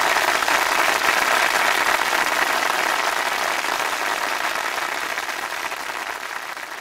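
Crowd applauding steadily, fading out gradually over the last few seconds.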